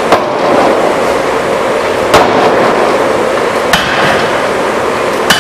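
Industrial power forging hammer striking four times, about one and a half to two seconds apart, each blow a sharp bang over a steady loud machinery noise.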